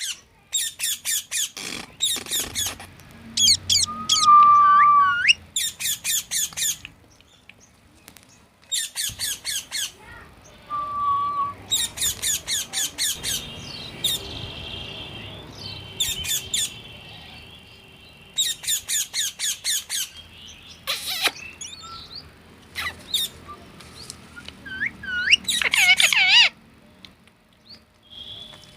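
Parrot calling: repeated harsh screeches in rapid rattling bursts of about a second each, with a few short whistles and rising notes between them.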